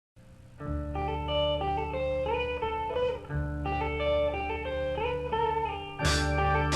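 Rock band recording played from vinyl: after a brief quiet lead-in, an electric guitar picks the opening riff over a steady bass, playing the phrase twice. Drums and cymbals come in near the end.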